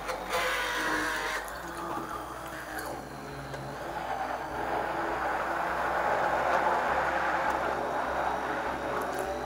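Electric hand blender running in a bowl of raw eggs, a steady motor whir with the liquid churning as the eggs are beaten to a froth. It grows louder from about four seconds in.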